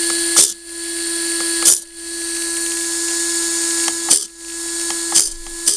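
Small electric drive of a model car's windscreen-wiper system running with a steady whine, broken by a handful of sharp clicks at uneven intervals.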